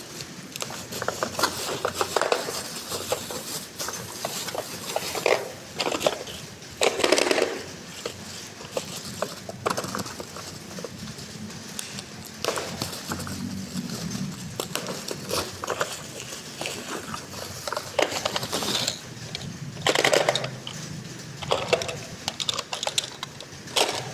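Small plastic toy parts and packaging being handled: irregular clicks, taps and clatter with a few louder knocks.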